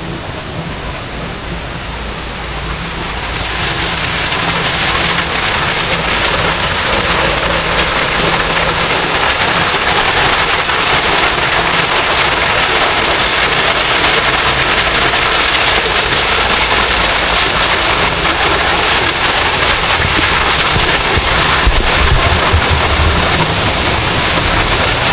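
Loud, steady rushing noise that swells about three seconds in and then holds.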